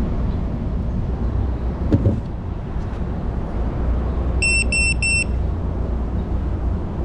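Three short, evenly spaced high electronic beeps from the FPV quad's beeper, over a steady low rumble, with a single thump about two seconds in.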